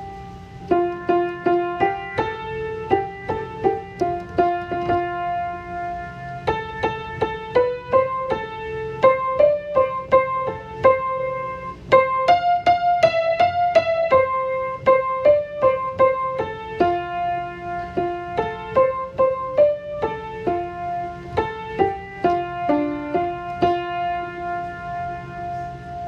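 Piano music: a melody of single struck notes, about one or two a second, some of them held for a second or more.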